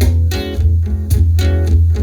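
Song accompaniment: strummed guitar chords, about two a second, over a steady bass line, in a gap between sung lines.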